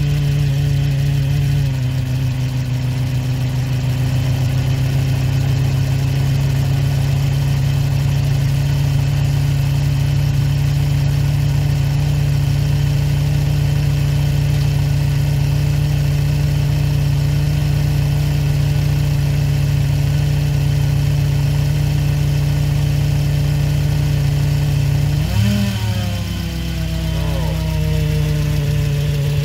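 Fiat Punto's turbocharged four-cylinder engine idling steadily while both of its alternators charge. Its pitch dips slightly about two seconds in and briefly rises and falls about 25 seconds in.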